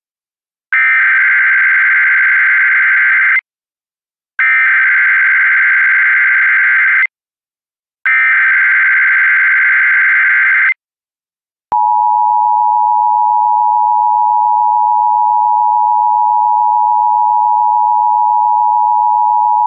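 Emergency Alert System activation for a child abduction emergency: three bursts of SAME header data tones, each under three seconds with about a second between them. About 12 seconds in, the steady two-tone EAS attention signal (853 and 960 Hz) starts and holds, announcing the spoken alert.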